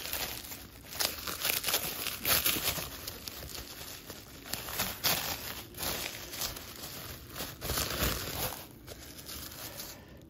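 Plastic bubble wrap crinkling and rustling as it is pulled open and unwrapped by hand, in uneven bouts of crackling that die down near the end.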